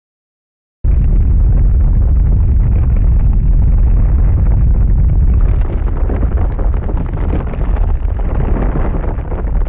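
Anime battle explosion sound effect: a loud, low rumbling blast that cuts in suddenly out of total silence about a second in and keeps rumbling, easing a little after about five and a half seconds.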